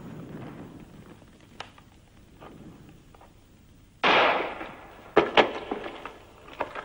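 Gunfire: a sudden loud shot about four seconds in, trailing off over about half a second, then two sharp cracks a quarter second apart and a few fainter knocks.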